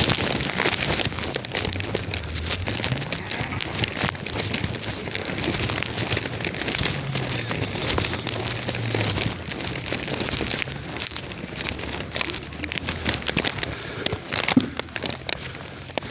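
Sleet pattering and crackling densely against clothing and the microphone, many tiny irregular ticks.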